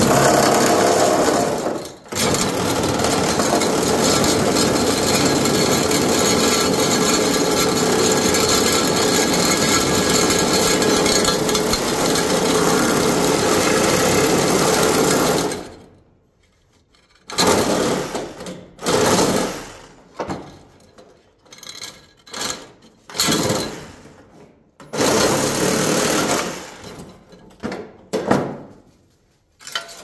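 Power saw cutting through the copper refrigerant line set at the compressor. It runs steadily for about fifteen seconds, stopping briefly near the start, then comes back in a series of short stop-start cuts.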